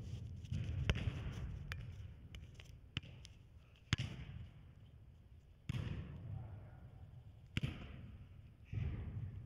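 A football being struck on indoor artificial turf: four sharp kicks and touches on the ball, spread across the few seconds, between bursts of low rumbling noise.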